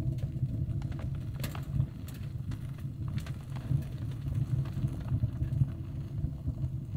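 A steady low rumble, with a few faint clicks and taps.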